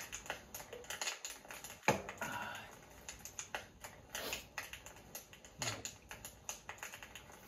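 A string of irregular light clicks and taps, like small hard objects being handled and set down, with one sharper click about two seconds in.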